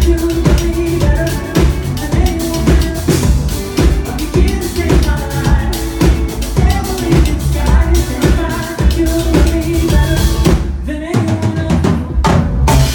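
Live band playing, with a drum kit driving a steady beat under keyboards and guitar. Near the end the low end drops out for a couple of seconds, leaving a few sharp hits, before the full band comes back in.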